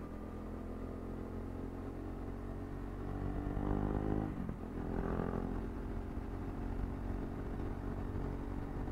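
KTM RC 390's single-cylinder engine under way, heard from the rider's seat. It runs steadily, then pulls harder with rising pitch, drops in pitch at an upshift about four seconds in, and climbs again before settling.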